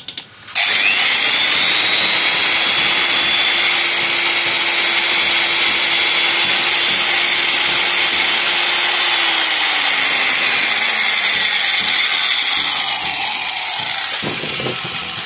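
Electric drill boring deeper into a masonry wall to take a dynabolt sleeve anchor. It starts about half a second in, runs at a steady speed, then winds down with a falling pitch over the last few seconds.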